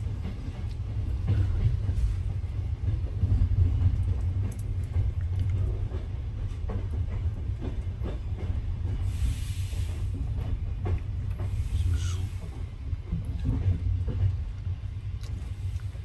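Passenger train under way: the coach gives a steady low rumble with faint scattered clicks. There are two short hisses, about nine and twelve seconds in.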